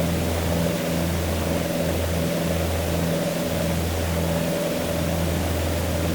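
Twin Comanche's two four-cylinder Lycoming piston engines and propellers droning steadily, with a low pulsing throb about once a second: the beat of the two propellers turning slightly out of sync.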